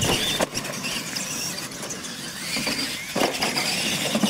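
Radio-controlled monster trucks racing on dirt, their electric motors and gears whining, the pitch rising and falling with the throttle. A few short knocks from the trucks over the course.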